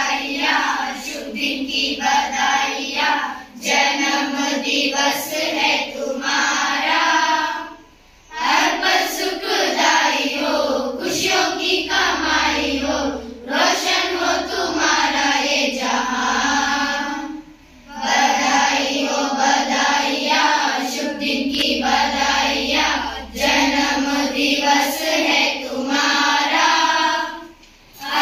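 A group of children singing together in unison in long phrases, with a brief pause between phrases roughly every nine to ten seconds.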